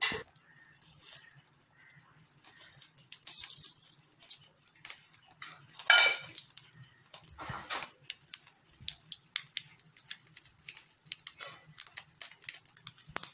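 A knock of metal on the kadai at the start; about six seconds in, mustard seeds hit the hot oil with a loud sizzle, and from about eight seconds on they crackle and pop in many quick small clicks as they splutter for the tempering.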